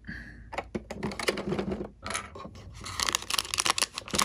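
Plastic clicks and rattles of a small plastic key working the lock of a plastic toy-box compartment door and the door swinging open, then rustling and crinkling as a wrapped item is pulled out of the compartment near the end.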